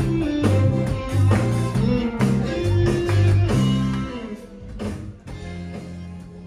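Live band music: a bass guitar line with drums and guitar. It fades down over the last couple of seconds.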